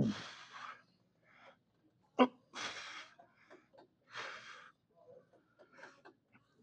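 A man's forceful exhales and short grunts of strain, one roughly every one and a half seconds in time with the reps of a lying leg curl. The first, a grunt falling in pitch, is the loudest.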